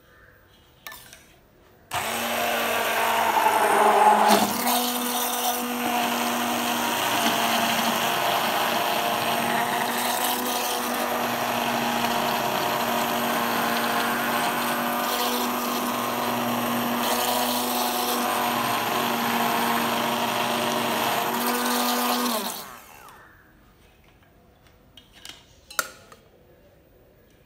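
ProMix immersion hand blender switched on about two seconds in, its motor running at a steady pitch as it churns milk cream into butter, then switched off near the end, the whine falling as it spins down.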